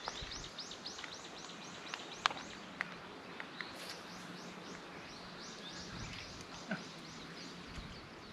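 A bird calling in fast runs of high, arching chirps, about four a second, pausing in the middle and starting again, with a few faint clicks.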